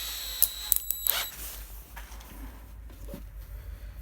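Cordless drill being switched to a smaller bit: a brief high whine with several sharp clicks from the chuck in the first second or so, then quieter handling noise.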